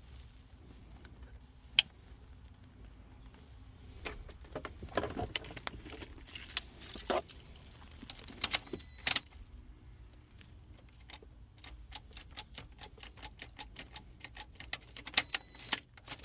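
Clicks, knocks and metallic rattling from hands working on the vehicle, with a fast run of light ticks in the last third and a couple of short high beeps.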